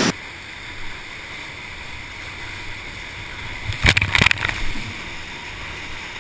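Whitewater rapids rushing around an inflatable raft, a steady hiss, with a few sharp splashes about four seconds in as a wave breaks over the raft's bow.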